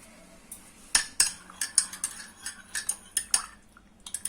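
A spoon stirring in a cup, clinking against its sides in quick, irregular strikes that begin about a second in, with a couple more near the end.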